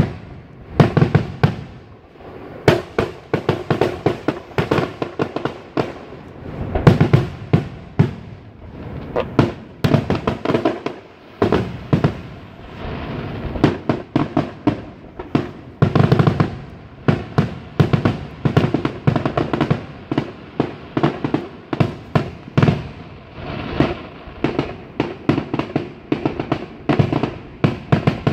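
Fireworks going off in a dense, irregular barrage of sharp bangs and rapid crackling, with many reports in quick succession.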